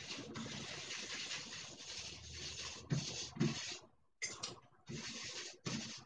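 Paintbrush scrubbing oil paint onto the painting: one continuous scrubbing for about three seconds, then a series of shorter separate brushstrokes.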